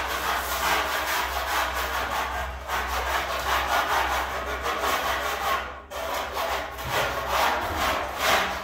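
Repeated rasping strokes in a steady back-and-forth rhythm, breaking off briefly about six seconds in.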